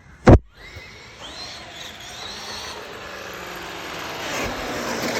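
A sharp, loud knock about a third of a second in, then a Traxxas X-Maxx RC monster truck's brushless electric motor whining up in pitch as the truck pulls away, with tyre and ground noise building.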